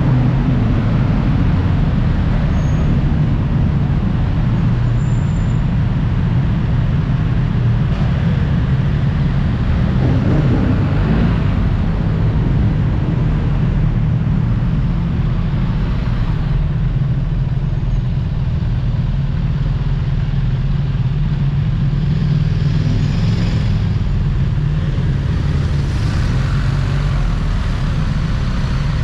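Onboard sound of a BMW R 1300 GS motorcycle being ridden: its boxer-twin engine running steadily at riding speed, with road noise.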